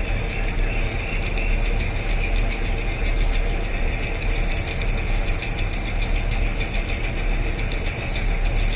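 Small motor running steadily with a low rumble. Short falling bird chirps repeat about twice a second through the second half.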